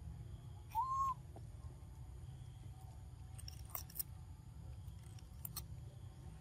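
A short whistle-like call that rises and falls about a second in. Then a few crisp crunches around four seconds in and again a little later, as a macaque bites into a raw cucumber. A low steady rumble runs underneath.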